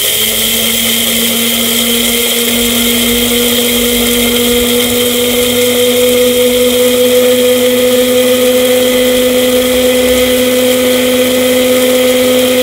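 NutriPro 500-watt personal blender motor running steadily at full speed with its dry-grinding blade, grinding roasted cumin and coriander seeds to powder: a loud, constant-pitched hum over a gritty rush.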